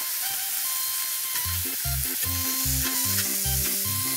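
Vegetables sizzling as they fry in olive oil in a steel pan, stirred and turned with tongs. Background music with a rhythmic bass line comes in about a second and a half in.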